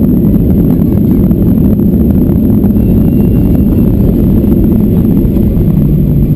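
Boeing 737-800 decelerating on the runway after touchdown, heard from inside the cabin over the wing: a loud, steady roar of the engines mixed with the rumble of the wheels on the runway. A steady low hum comes in near the end.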